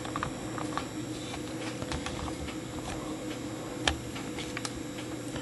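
Scattered light clicks and taps from fingers handling a wooden clock movement, with one sharper click about four seconds in.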